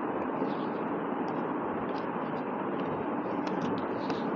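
Steady, even background noise with a few faint ticks, more of them near the end.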